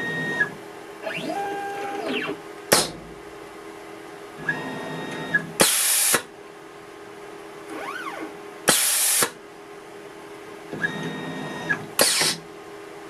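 Tormach CNC mill's axis motors whining as the machine makes rapid moves at the start of a probing program, the pitch gliding up and down as each move speeds up and slows down. Four short, loud hissing bursts come at intervals of about three seconds.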